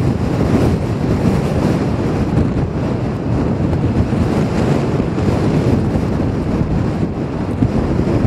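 Strong wind blowing across the camera microphone: a loud, steady rush of low buffeting noise that rises and falls slightly.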